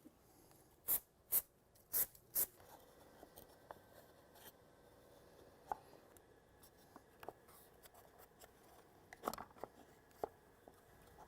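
Hand work at a workbench: four short scraping strokes about a second in, then scattered light clicks and taps of small parts being handled, with a brief rustling scrape near the end.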